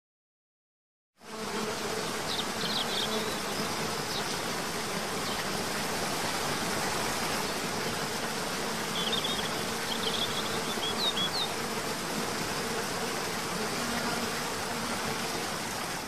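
Waterfall rushing steadily, starting about a second in, with a faint low steady buzz underneath and a few short high chirps twice.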